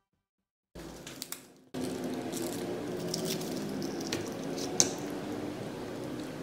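Plastic straw being worked into a paper juice box: small squeaks and clicks, with one sharp click about three-quarters of the way through, over a steady low room hum that starts a couple of seconds in.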